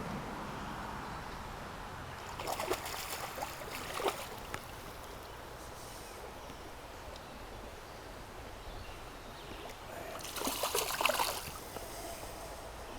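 Shallow river water trickling steadily, with two short bouts of splashing, one about two and a half seconds in and another about ten seconds in.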